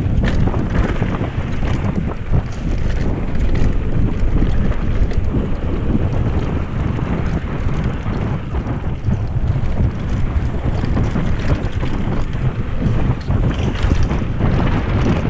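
Wind buffeting the microphone of a camera on a mountain bike riding fast downhill, with the tyres rolling over a dirt trail and small knocks and rattles from bumps throughout.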